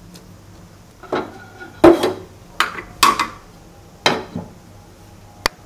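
Cookware being handled on the stove: about six clinks and knocks of a cooking pan, its lid and a spoon, the loudest about two seconds in and a short sharp one near the end.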